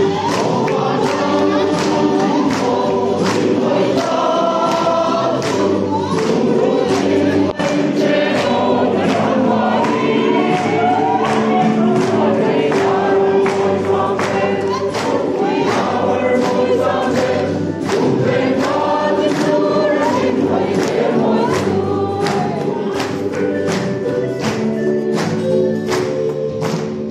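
A men's choir singing a gospel hymn together over a steady percussive beat.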